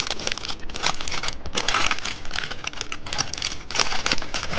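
A crinkly gold-coloured candy wrapper being torn and unwrapped by hand, in a rapid, irregular run of crackles and rustles.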